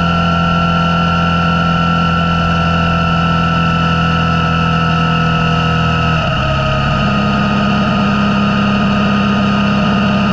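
Motorcycle engine running steadily at cruising speed. Its pitch shifts about six seconds in, then holds again.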